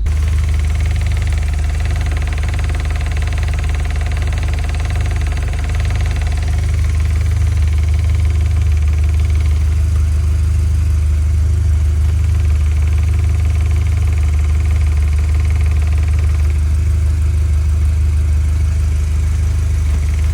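Skoda Octavia RS 2.0 TFSI (BWA) turbocharged four-cylinder petrol engine idling steadily.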